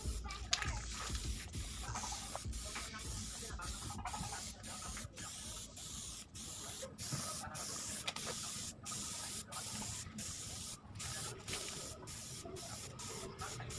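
Aerosol spray can of Bosny clear coat hissing in short, repeated bursts with brief stops between them, applying the top coat.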